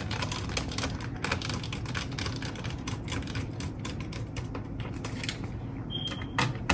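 Screws being driven into a laptop's bottom case with a small screwdriver: a run of rapid, irregular small clicks, with a louder click near the end.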